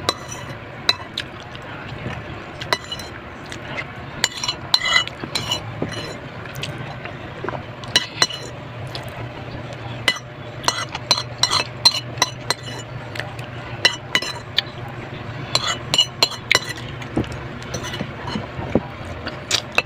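Eating utensils repeatedly clinking and scraping against a plate or bowl during a meal, many short sharp clicks at an irregular pace, over a steady low hum.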